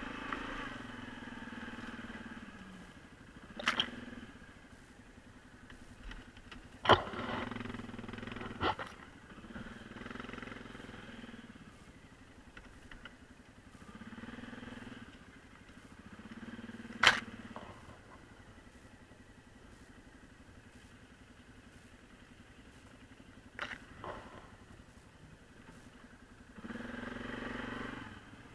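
Suzuki King Quad ATV engine running, swelling with bursts of throttle and dropping back between them. About five sharp knocks stand out, the loudest about a third of the way in and again past the middle.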